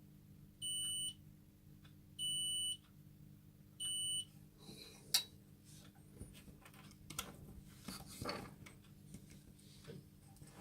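An electronic beeper sounding three short, equal beeps about a second and a half apart, followed by faint clicks and handling knocks.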